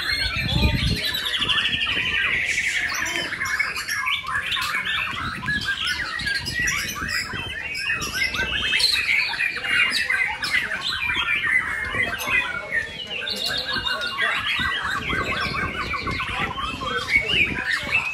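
Several caged white-rumped shamas singing at once, a dense overlapping chorus of varied chirps, whistles and rapid trills, with a fast falling trill in the first few seconds. A low thump about half a second in.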